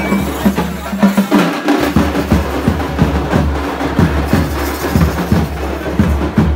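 Drum-led music with a fast, steady beat of sharp strikes.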